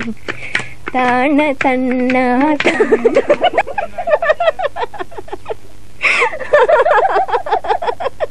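A woman's voice singing a few long, wavering notes, then a young woman laughing heartily in quick, choppy peals for the rest of the time.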